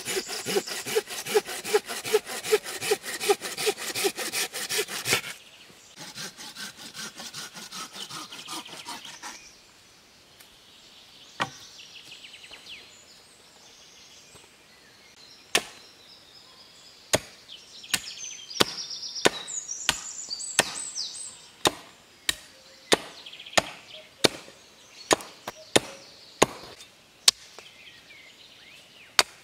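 Hand saw cutting through a branch in quick, even back-and-forth strokes, which go quieter after about five seconds and stop near ten. From about halfway in, a hatchet chops into the base of a green sapling in sharp single strikes, a little more than one a second.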